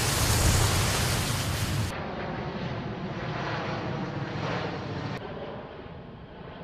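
Steady rushing roar of aircraft and wind noise, deep and heavy for the first two seconds, then abruptly lighter about two seconds in and again about five seconds in.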